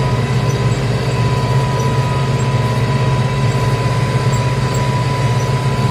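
Tractor diesel engine running steadily at full throttle under the load of a plough, a low even drone with a thin steady whine above it.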